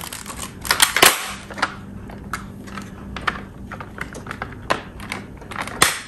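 Plastic clips of a Samsung refrigerator's French-door mullion being snapped shut by hand: a run of sharp clicks and taps, loudest about a second in and again near the end.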